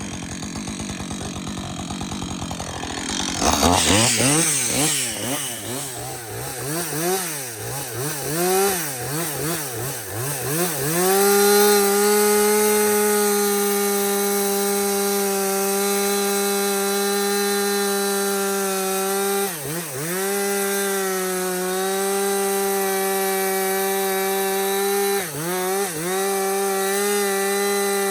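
Two-stroke chainsaw idling, then blipped up and down several times before being held at steady high revs, with two brief dips. The owner believes a bearing in the saw is going.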